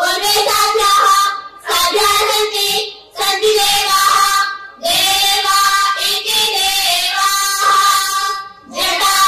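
A group of girls singing together in unison, in long held phrases broken by short pauses for breath.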